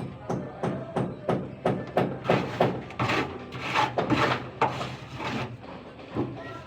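Hammer striking wood over and over in a quick, even rhythm, about three blows a second.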